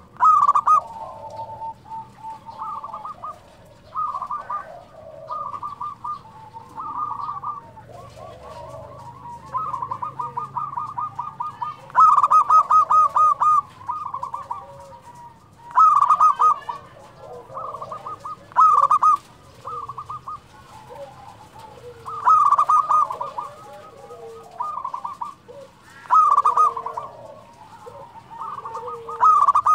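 Local zebra dove (perkutut) in full song: loud bursts of quick staccato cooing notes every couple of seconds, with softer cooing between them.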